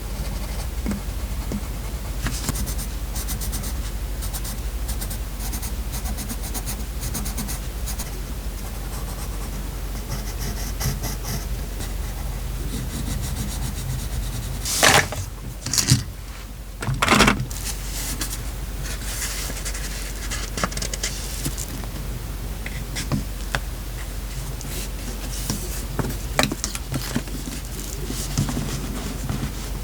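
Paper and stickers being handled and rubbed onto a journal page: soft rustling, scraping and small taps, with three short, louder paper rustles about halfway through.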